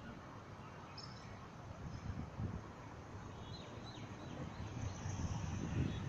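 Faint street ambience: a low rumble of wind and distant traffic, with a few short high bird chirps about a second in and again around three and a half and five seconds. The rumble grows louder near the end.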